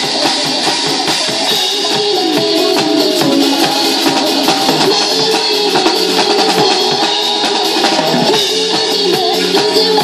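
Acoustic drum kit played live over a recorded pop-song backing track: a steady run of quick drum and cymbal hits over the song's sustained melody.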